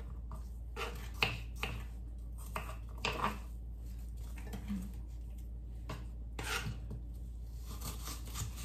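Kitchen knives cutting apple and cucumber on wooden chopping boards: irregular light knocks of the blades meeting the board.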